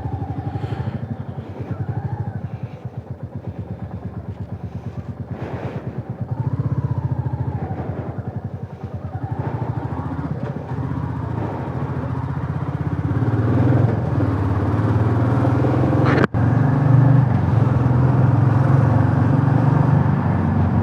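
Motorcycle engine running under way, its low pulsing note growing louder and steadier from about halfway through as the throttle is held open, with one instant dropout near the end.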